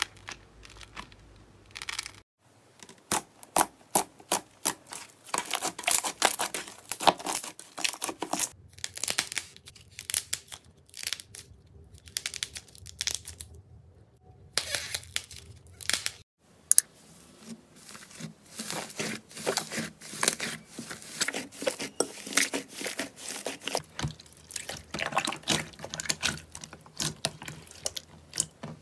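Slime being squeezed and stretched by hand: a dense run of short sticky pops and crackles, broken by a few brief pauses.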